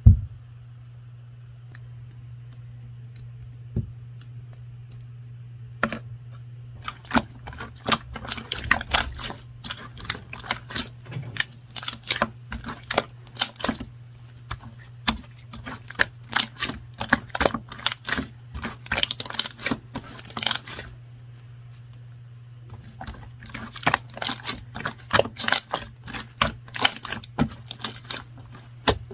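Two long runs of quick, light clicking taps, like typing, over a steady low hum.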